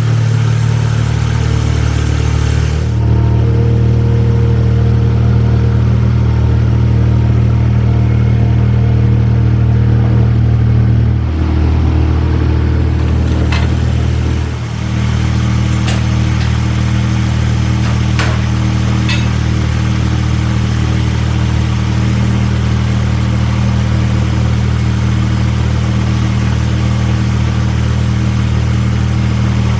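Ventrac 4500Z compact tractor's engine running steadily at a constant speed. A few sharp clicks sound over it in the middle.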